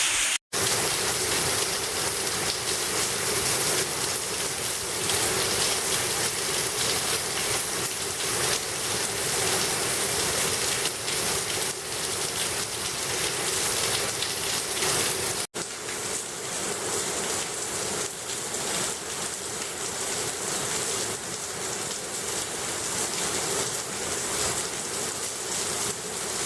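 Heavy rain falling, a steady even hiss of a downpour. It drops out briefly twice, about half a second in and again about halfway through.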